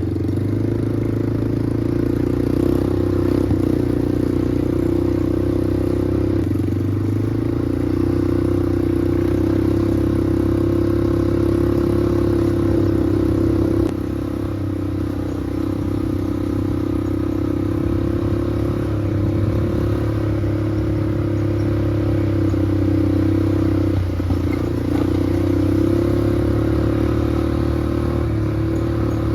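Small off-road vehicle engine running at a fairly steady speed under way, with some rattle. The engine note shifts down slightly about halfway through and dips briefly near the end.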